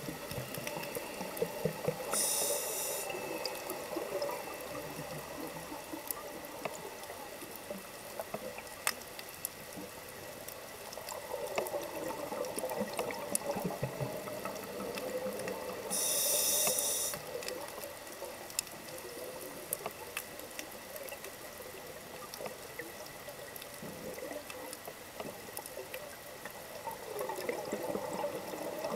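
Scuba diver breathing through a regulator underwater: two inhalation hisses about a second long, roughly fourteen seconds apart, each followed a while later by a long gurgle of exhaled bubbles. Scattered sharp clicks run underneath.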